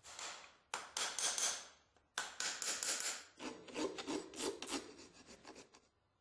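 Farrier's rasp filing a horse's hoof wall as the shod foot is finished. It goes in a few long scraping strokes, then a run of quicker short strokes that fade away near the end.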